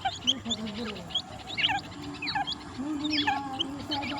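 Francolin (titar) chicks peeping at feeding time: many quick, high chirps sliding downward, overlapping one another, over a low wavering tone.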